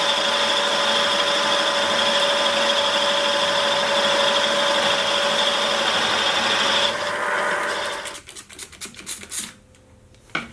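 Sieg milling machine spindle running while a cutter counterbores a hole in a metal block, a steady hum with a high whine over the scraping of the cut. It stops about seven seconds in, followed by a few light clicks and knocks.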